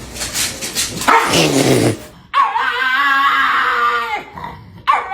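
A dog vocalising in drawn-out cries: one that falls in pitch about a second in, then a long, wavering, high-pitched whine, with another beginning near the end.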